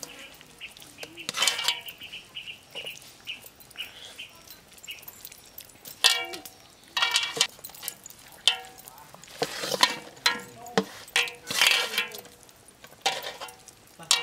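Hands rubbing marinade into a whole raw chicken in an aluminium basin: wet squishing and scraping, broken by irregular metallic clinks and rings from the basin and the cook's bangles.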